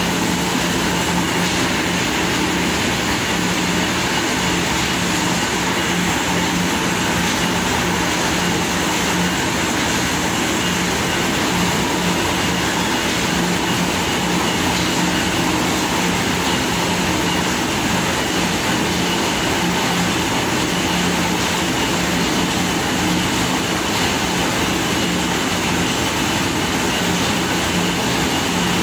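Corn mill running while grinding corn: a loud, steady mechanical drone with a constant low hum that does not change.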